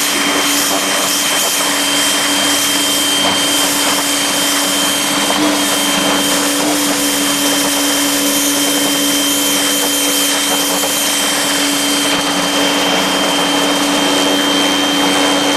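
Greenworks 2000 PSI electric pressure washer running steadily, its motor and pump giving a low hum and a thin high whine over the hiss of water jetting from the spray nozzle.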